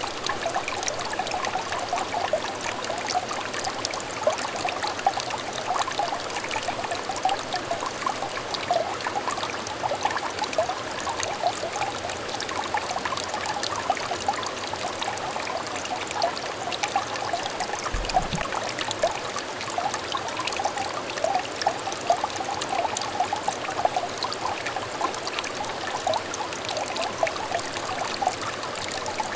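Water trickling and babbling in a small clear stream: a steady, continuous burble of many small bubbling splashes. A brief low thud about eighteen seconds in.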